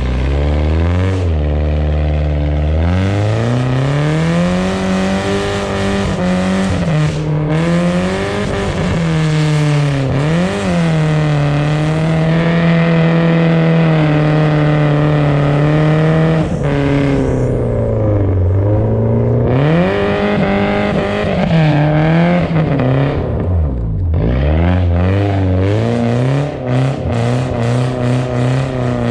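BMW car engine revving up and down while drifting on ice, the revs climbing and falling over and over, with deep drops in revs about two-thirds through and again a few seconds later.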